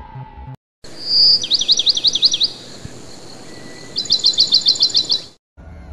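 A small bird singing loudly: a short whistle, then about five quick up-and-down sweeping notes, and later a run of about ten sharp high notes in a row.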